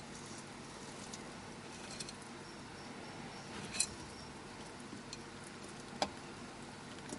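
A few light, sharp clicks and taps as a Mexican beaded lizard moves its snout and claws among quail eggs in a terracotta dish, the clearest a little before the middle and about six seconds in, over a faint steady hiss.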